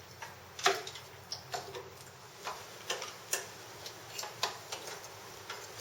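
Small plastic wiring connectors and wires being handled and fitted together, giving a string of irregular clicks and taps, the loudest about two-thirds of a second in.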